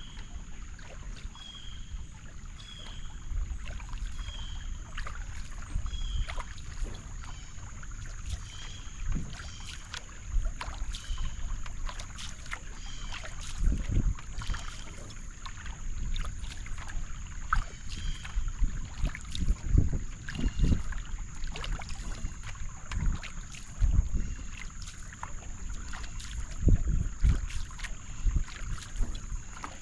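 Single-blade paddle strokes dipping and pulling through calm creek water beside a solo Wenonah J-210 racing canoe, with splashes and drips at each stroke and a few louder low thumps in the second half. A short high chirp repeats about once a second through the first half, over a steady high hiss.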